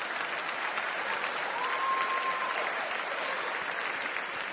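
Large theatre audience applauding steadily, with one short held whistle from the crowd about halfway through.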